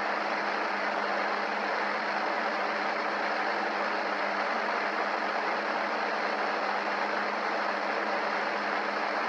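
Steady hiss of white-noise static from a ghost box (spirit box) setup, with a faint low hum underneath.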